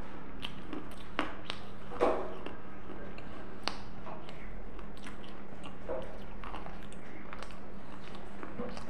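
A person chewing food close to a clip-on microphone: scattered wet mouth clicks and smacks over a steady low hum.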